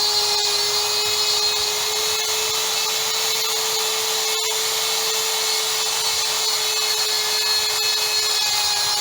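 A power tool's motor running at a steady, constant whine, with an even hiss of cutting over it. There is a brief break in the sound about halfway through.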